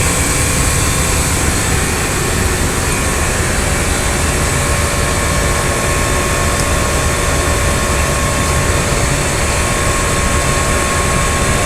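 Heat pump water heater unit running: a steady, loud mechanical whir from its fan and compressor, with faint steady tones riding on it.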